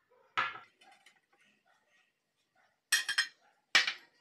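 Dishes knocking and clinking as a plate and bowl are moved on the table: one knock about half a second in, a quick run of clinks around three seconds, and another knock near the end.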